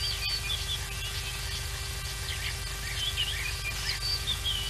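Small birds chirping and twittering in the bush, a run of short, quick curved notes, over a steady low hum.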